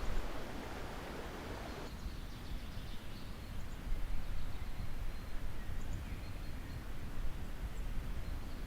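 Forest ambience: a steady rushing background with a low rumble, and a few faint high bird chirps. The rushing drops abruptly about two seconds in.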